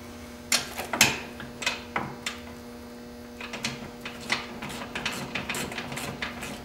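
Irregular metal clicks and clinks of a socket wrench and open-end wrench working the light-bar bracket bolts tight on a golf cart's steel frame, sparse at first and quicker from about halfway in, over a steady low hum.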